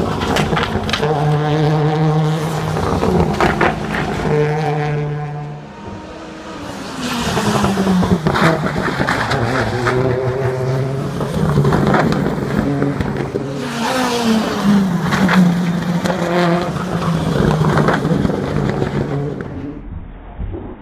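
Race car engines running hard as cars pass one after another. One engine note holds steady for the first several seconds, there is a brief lull about six seconds in, then another car's engine comes in and changes pitch before fading near the end.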